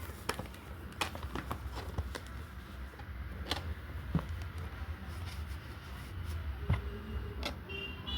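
Irregular taps and clicks of a perfume box and its packaging being handled and opened, over a low steady hum.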